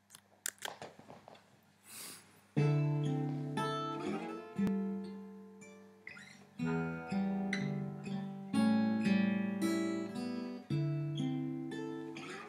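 Acoustic guitar playing a slow instrumental intro: full chords struck about every two seconds and left to ring out. A few faint clicks come before the first chord, about two and a half seconds in.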